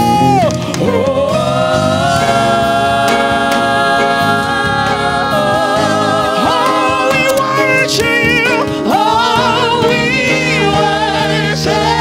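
Live gospel worship music: singing in long held notes that gain a wavering vibrato later on, over steady instrumental accompaniment.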